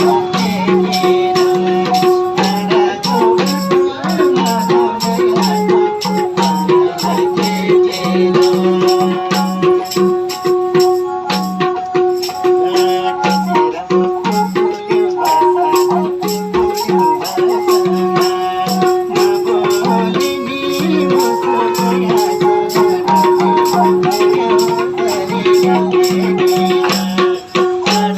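Nepali folk music: a sarangi melody over a fast, even percussion rhythm with a rattling shaker-like beat.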